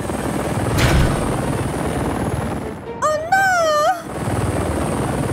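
Cartoon helicopter sound effect: the rotor chopping steadily as the helicopter flies, with a rushing whoosh about a second in and a short wavering high cry about three seconds in.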